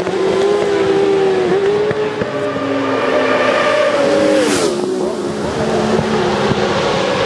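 Racing motorcycles running hard, several engines heard at once, their pitch stepping up and down through gear changes. Two bikes pass close about four and a half seconds in, their engine note dropping as they go by.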